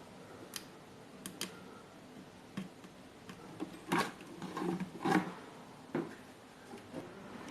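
Scattered small clicks and handling noises of wires and plug connectors being fitted to a subwoofer amplifier board.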